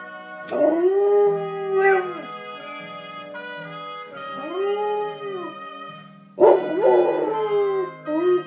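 Yellow Labrador howling along to TV theme music. There are two long howls that rise and then fall in pitch, then a louder, rougher howl near the end.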